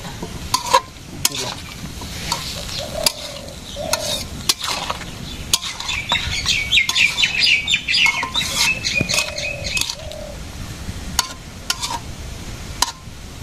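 Metal spatula scraping and clinking against a steel karai as potato and cauliflower are stirred, sizzling in oil over a wood fire. A bird chirps rapidly for a few seconds from about the middle.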